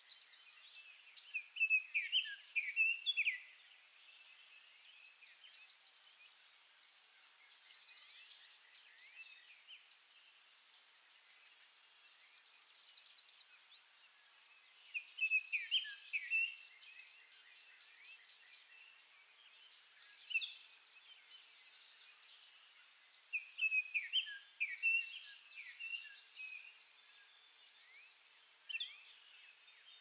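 Songbirds singing in short bursts of chirps and descending trills every few seconds, over a steady high-pitched drone, likely insects.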